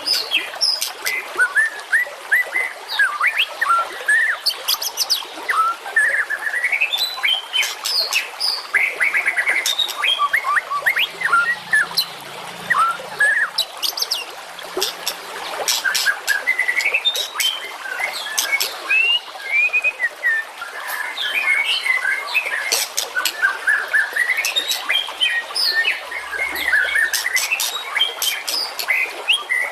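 Dense, unbroken songbird song: rapid chirps, sharp ticking notes and rising and falling whistles and trills overlapping without pause.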